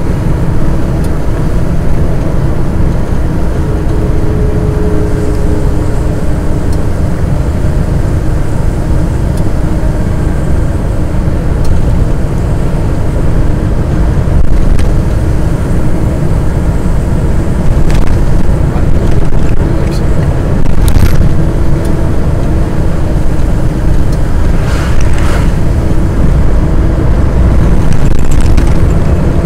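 Steady low rumble of a truck driving along at speed, heard inside the cab: engine drone and road noise, with a few short clicks a little past the middle.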